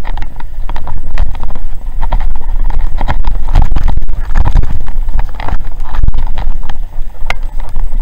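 Loud, dense clatter and rattling of a downhill mountain bike rolling fast over a loose, rocky gravel trail, with a heavy rumble of wind buffeting the microphone underneath.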